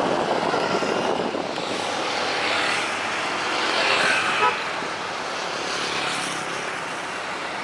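Jet airliner noise passing and slowly fading, mixed with road traffic. A short sharp sound stands out about four and a half seconds in.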